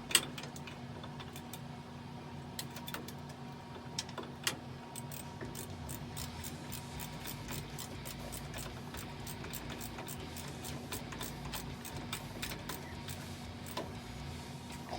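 Ratchet wrench clicking in quick, even runs as the starter's 9/16 mounting bolts are tightened, with a sharp click right at the start and a steady low hum behind.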